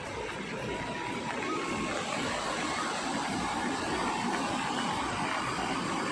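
Steady rushing of a flooded mountain river: the East Nayar in spate, its muddy water churning after continuous rain.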